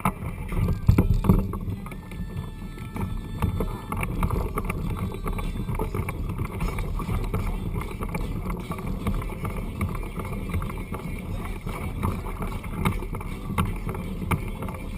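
Steady low rush of wind and water around a kayak, with scattered knocks and clicks, busiest in the first couple of seconds.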